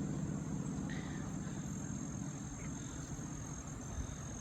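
Outdoor ambience at a wetland: a steady low rumble with a thin, steady high-pitched insect-like drone over it, and a couple of faint short chirps.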